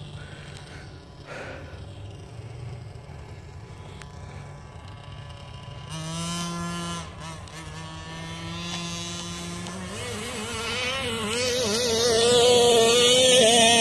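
Small two-stroke petrol engine of a Rovan Losi 5ive-T clone 1/5-scale RC truck, running under throttle at a distance with a brief rev about six seconds in. Over the last few seconds it grows much louder as the truck drives toward the microphone, its pitch wavering up and down with the throttle.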